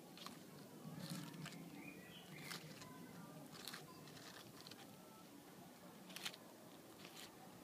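Tortoise biting and tearing butterhead lettuce leaves: faint, crisp crunching clicks at irregular intervals, a second or more apart.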